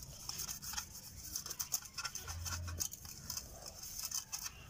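A hand rubbing oil over butter paper pressed into a steel cake pan: an irregular crackling and scratching of paper under the fingers.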